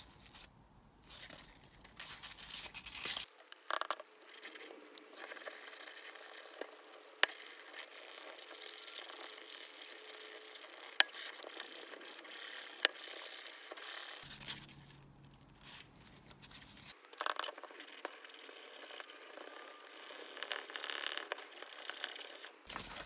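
Forged aluminium piston crown being wet-sanded by hand with 600-grit wet and dry paper and lubricant: a steady scratching of abrasive paper rubbing over the metal, with a few sharp clicks. This is the first sanding stage toward a mirror-polished crown.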